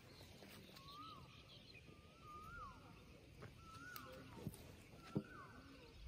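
A bird calling over and over, about once a second; each call is a whistled note that rises and then drops sharply. Two short knocks stand out a little past the middle.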